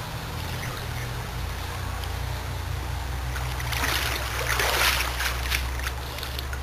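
Pool water splashing and streaming off a person wading through the shallow end and climbing out up the pool steps, loudest for a couple of seconds about four seconds in, over a steady low hum.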